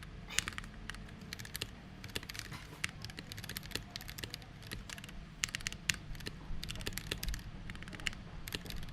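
Typing on a Tecware B68+ mechanical keyboard with Gateron Yellow linear switches and PBT keycaps: a quick, uneven run of key clicks, some strokes louder than others.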